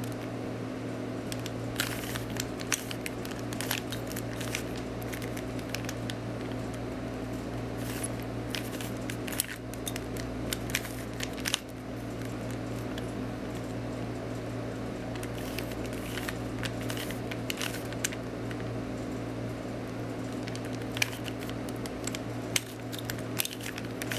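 Plastic Rubik's Cube being twisted by hand: irregular quick clicks and clacks as its layers are turned, over a steady low hum.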